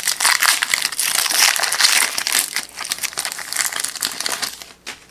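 Foil wrapper of a trading-card pack crinkling loudly as the pack is torn open and handled, tailing off near the end.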